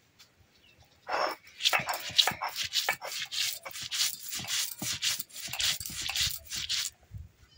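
Stone roller on a Bengali grinding stone (shil-nora) grinding white mustard seeds, poppy seeds and green chillies. It makes rhythmic gritty scraping strokes, about two a second, starting about a second in.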